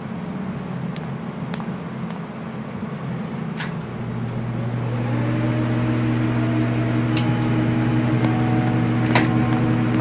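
Electrical hum of laboratory machinery: a rumbling background joined about four seconds in by a steady low electrical drone that grows louder, with a few sharp clicks.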